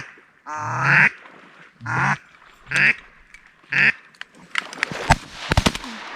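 Four loud duck quacks, then a rapid volley of shotgun shots from several guns about five seconds in.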